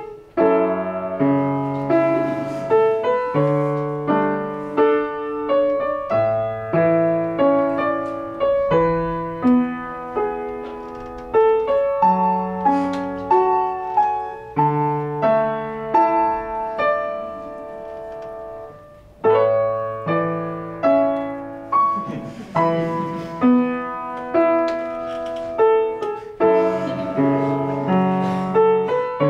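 Solo piano music: a gentle melody of struck notes that each ring and fade. About two-thirds of the way through, a held note dies away before the playing starts again.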